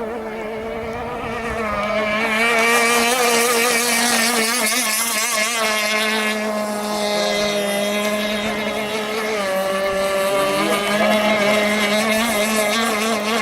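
Small gasoline engine of a radio-controlled model gas boat running at steady high revs, a buzzing whine with a slightly wavering pitch that grows louder about two seconds in.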